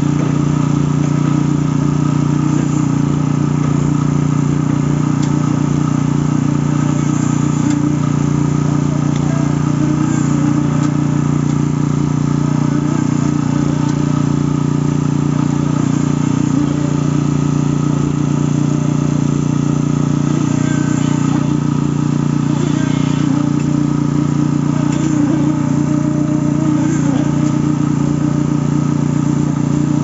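Engine-driven concrete-pouring machinery running steadily: an even, unchanging engine drone with a strong low hum.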